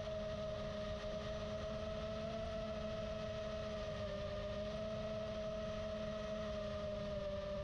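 FPV quadcopter's brushless motors and propellers whining steadily, the pitch wavering slightly with throttle, heard through the onboard camera over wind rush.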